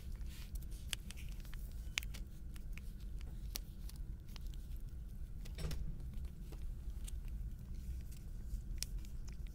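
Cat chewing wet cat food chunks close to the microphone: a string of irregular small wet clicks and smacks, over a steady low rumble.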